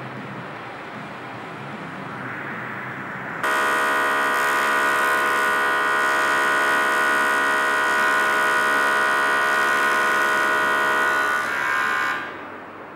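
Soft hiss of TIG welding on a stainless steel tube, then a loud, steady electric welding-arc buzz that starts suddenly about three and a half seconds in and cuts off near the end.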